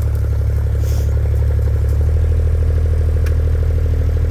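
JCB mini excavator's diesel engine running steadily under load, a deep regular drone that shifts slightly in tone about two seconds in.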